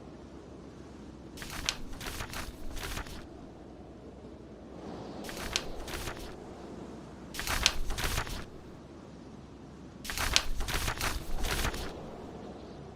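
Paper pages being turned and rustling, four crinkly passes of one to two seconds each, over a steady low background of storm wind and fire.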